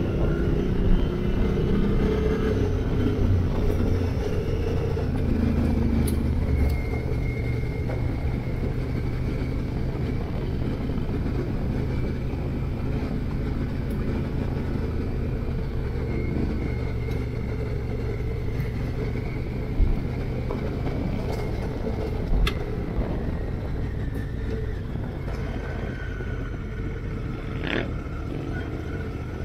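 Big adventure motorcycle's engine running as it rides a dirt track, heard from a helmet-mounted camera with wind noise on the microphone. The engine note shifts in the first few seconds, then runs steadily, with two brief knocks a couple of seconds apart past the middle.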